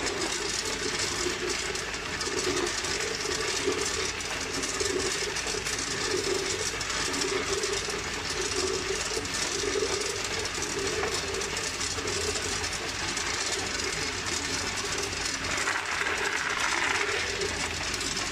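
Tube ice tumbling out of a tube ice machine's discharge chute and clattering onto a pile of ice in a plastic basin, a steady rattle over the machine's running. Near the end a plastic scoop scrapes into the ice.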